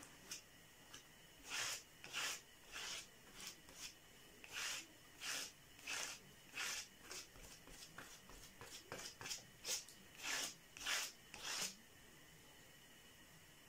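Spatula spreading and smoothing putty through a tile-pattern stencil on cardboard: a string of short, faint scraping strokes, about two a second, that stop a couple of seconds before the end.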